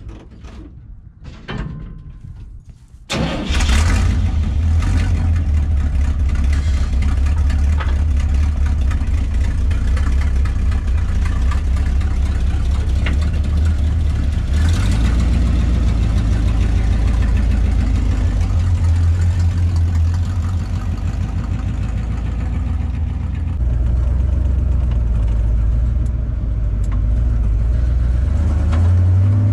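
1979 Chevrolet C10 pickup's engine starting through a newly fitted exhaust with bullet mufflers: a few short knocks, then it fires about three seconds in and runs loud and steady. The level dips a little around twenty seconds and rises again a few seconds later.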